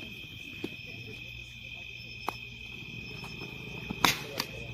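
Insects chirping steadily in a high, even tone, with a loud, sharp crack about four seconds in and a softer one just after.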